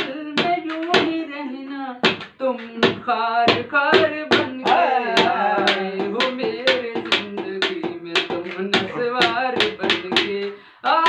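Hand drumming on an upturned aluminium cooking pan used as a drum, a steady beat of about two to three strikes a second, with a man's voice singing along in held, wavering notes.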